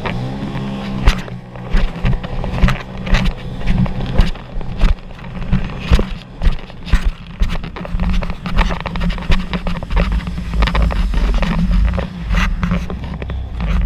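Sea-Doo personal watercraft under way: its engine drones steadily while the hull slaps over the waves, giving irregular thumps and splashes of spray throughout.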